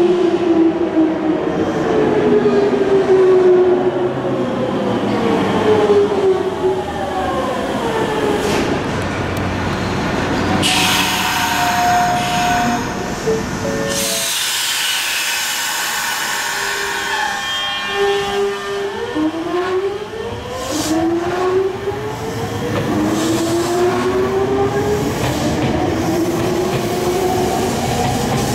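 Nankai 2000 series train's Hitachi GTO VVVF inverter and traction motors whining. The pitch falls over the first third as the train brakes, then holds a few steady tones near a standstill, and climbs again in several stages as it accelerates.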